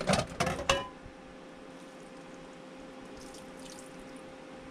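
Kitchenware clattering in the first second, ending in a short ringing clink, then a steady low hum.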